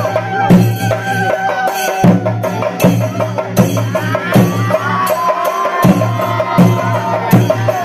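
Kerala temple festival music: drums beaten with sticks, their strokes coming in an uneven rhythm, over a steady low drone with a wavering, gliding melody line above.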